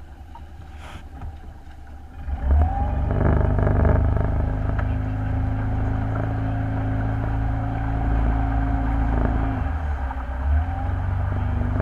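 Motorboat engine running steadily, coming in loud about two seconds in and easing off briefly near the end.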